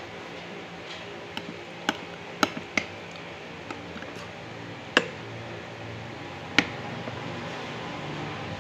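Metal spoon clinking against a bowl of thick rice porridge as it is stirred and scooped: several sharp clinks, the loudest about five and six and a half seconds in, over a steady low hum.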